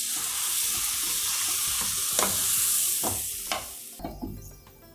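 Wooden spatula stirring and scraping a potato-and-vegetable masala around a hot kadai, over a steady sizzle of frying in oil and butter. The sizzle drops away suddenly near the end.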